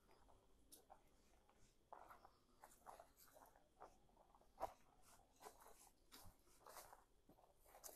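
Near silence, with faint, irregular rustles and clicks scattered through it.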